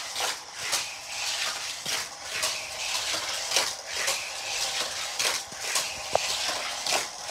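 Plastic Hot Wheels track pieces and small die-cast toy cars clicking and clattering as they are handled and set up on the floor, with irregular light knocks two or three times a second.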